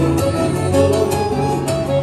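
Music with a steady beat and sustained instrumental notes.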